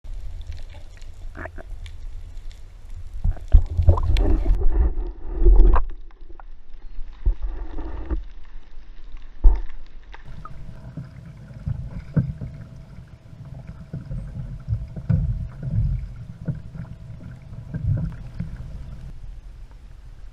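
Water sloshing and splashing around a kayak, with a few sharp knocks against the hull, the loudest about a third of the way in and near the middle.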